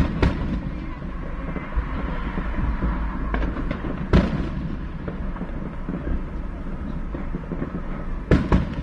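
Aerial fireworks shells bursting, heard from inside a car: sharp bangs just after the start, a few lighter pops then the loudest bang about four seconds in, and two more near the end, over a steady low rumble.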